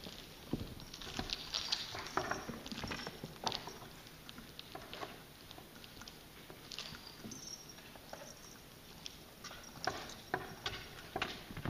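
Cats' paws pattering and scuffling on a hard floor as they wrestle and play, an irregular run of soft taps and small knocks.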